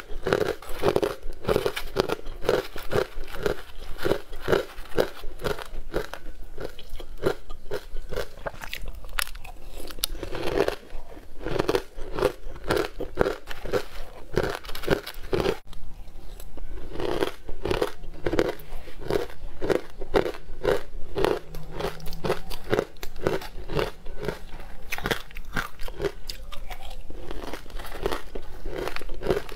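Close-miked crunching and chewing of crumbly green frozen sweet ice, a steady run of crisp bites at about two to three a second, broken by a few short lulls.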